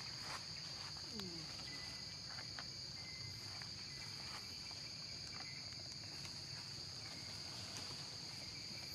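Steady high-pitched drone of a forest insect chorus, with a few faint light clicks.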